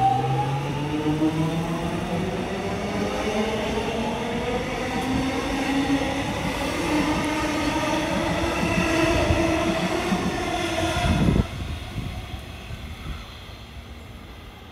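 Electric suburban train accelerating, its traction motors whining steadily higher in pitch over wheel-on-rail rumble. The whine cuts off suddenly about three quarters of the way through, leaving a quieter rumble.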